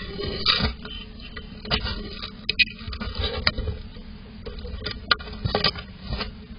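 An animal's paw scratching and scraping against the wooden box and raking through loose seeds, with irregular clicks, knocks and seeds rattling.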